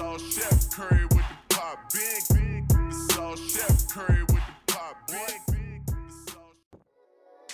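Hip hop track with rapped vocals over a deep bass line and sharp hi-hats; the music stops near the end.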